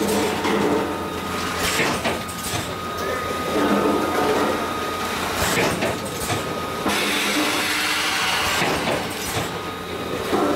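Automatic snack bag packaging machine running: a steady mechanical hum with repeated sharp clacks every second or two as it cycles, and a stretch of hiss about seven seconds in.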